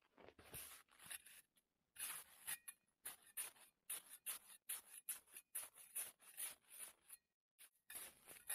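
Small camp shovel digging and scraping into crusted snow: a quick run of short, crisp crunching scrapes, several a second, with a brief pause near the end.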